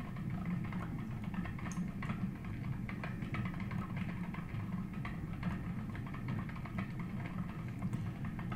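Bicycle-wheel magnet generator spinning freely after being spun up by hand, a steady low whir with a dense fine ticking, while its transformer pickup coil is shorted out.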